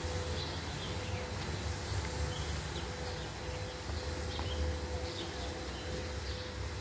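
Outdoor ambience: short bird chirps here and there over a steady low rumble and a constant faint hum.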